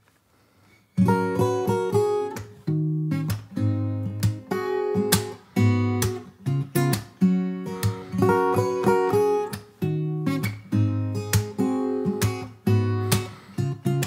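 Acoustic guitar strummed in a steady, syncopated rhythm, with sharp muted strokes between the chords and chord changes about every second; the playing starts about a second in.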